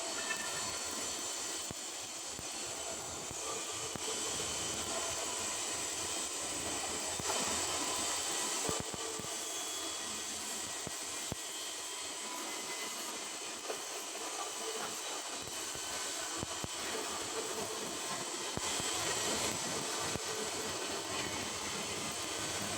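Stick (SMAW) welding arc crackling and hissing steadily as an electrode burns along a carbon steel pipe joint.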